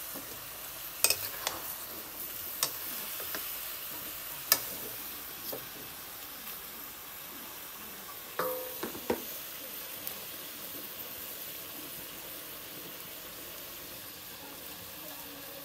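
Pork pieces sizzling as they fry in a wok over a wood fire. A metal spatula knocks and scrapes against the pan a few times in the first five seconds. About eight and a half seconds in there is a louder metal clatter with a short ring.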